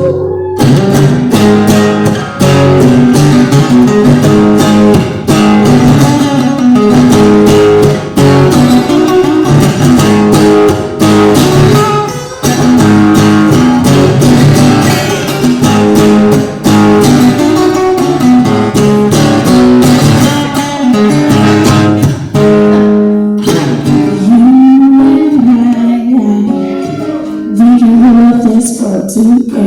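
A rock song played live on guitar: a stretch without lyrics, with steady strummed chords. A single wavering melody line comes in over the chords near the end.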